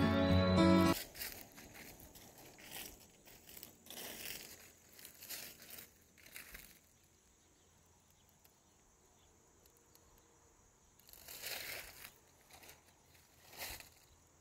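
A guitar music track ends about a second in. Then come faint, scattered rustling and crinkling noises, with two short louder rustles near the end, over a faint steady high insect trill.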